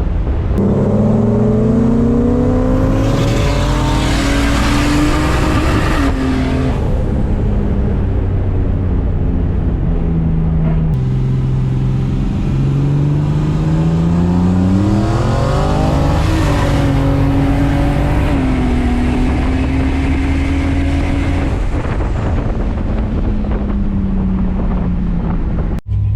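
Car engine pulling hard, its pitch climbing and then dropping sharply as it shifts gear, several times over. Between pulls the revs settle back to a steadier note.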